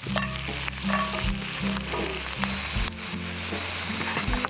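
Boiled potatoes sizzling steadily in a hot pan of butter and meat juices as they crisp. Background music with low held notes plays underneath.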